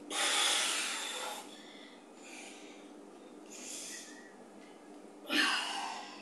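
A woman breathing hard under exertion during weighted lunges: a loud, forceful exhale at the start, fainter breaths about every second and a half, and another loud breath near the end.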